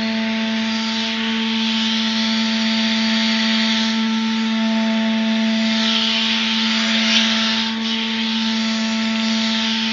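Hydraulic valve test rig running: a steady hum with a rushing hiss that swells and fades several times.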